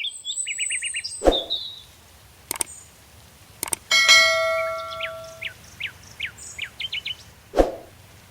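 Songbirds singing in woodland: quick trills and high whistles, then a run of short descending notes. A few sharp clicks or knocks break in, and about four seconds in a single bell-like ding rings out and fades over about a second and a half.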